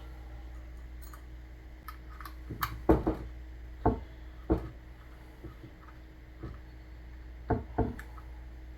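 Scattered clicks and knocks of small metal parts being handled and screwed onto a rifle's sling swivel stud as a rail adapter is fitted, with a cluster about three seconds in and a pair near the end, over a steady low hum.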